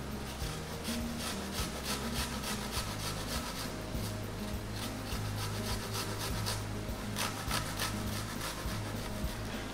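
A garlic clove being grated on a stainless-steel grater: repeated rasping scrapes, about two to three strokes a second.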